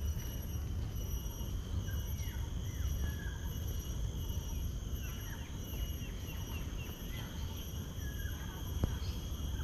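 Garden ambience: a steady high insect drone with short falling bird calls repeating every second or so, over a low rumble. A single sharp click near the end.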